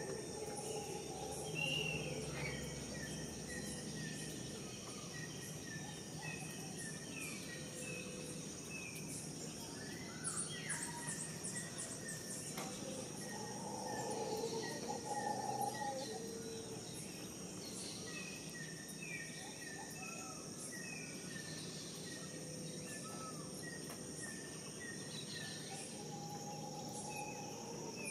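Insects droning in a steady high whine while many birds call in short repeated chirps, with a flurry of very high chirps about ten seconds in and louder, lower calls a few seconds later.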